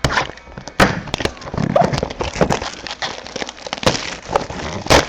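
Plastic wrapping and cardboard packaging of a trading-card box being torn open and handled: irregular crinkling and crackling with sharp snaps, the loudest just before the end.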